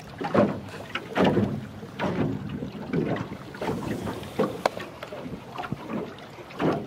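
Wind buffeting the microphone and small waves slapping against the hull of a fishing boat, in uneven surges about every half second to second.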